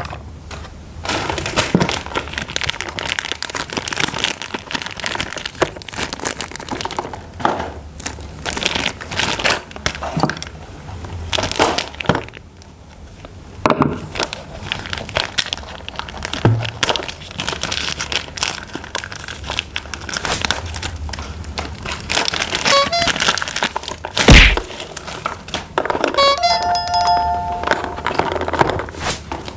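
Plastic toy packaging and parts being handled and unboxed: crinkling plastic with many clicks and knocks. A heavy thump comes past the middle, and near the end a few short electronic tones sound, like a toy's beeping jingle.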